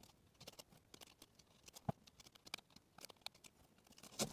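Faint, scattered small clicks and crackles as hands press and squeeze a small whole watermelon, trying to split its rind open by hand. Louder clicks come about two seconds in and again near the end.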